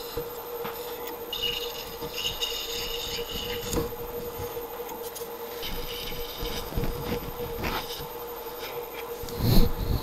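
Drill press with a 3.8 mm twist drill cutting through a metal plate: a steady motor hum, with a high scraping squeal from the cut that comes and goes, and a louder knock near the end.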